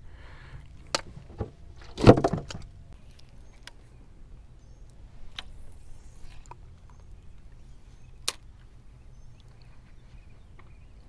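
Scattered clicks and knocks from fish and tackle being handled in a boat, with one louder thump about two seconds in, over a faint steady low hum.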